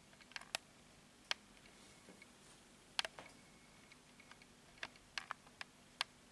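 Scattered light clicks and taps, about a dozen at irregular intervals, over a faint steady hum.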